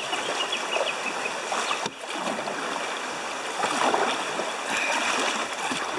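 River water rushing and splashing around a kayak moving through quick-flowing current, with uneven surges of splashing from the paddle and the hull.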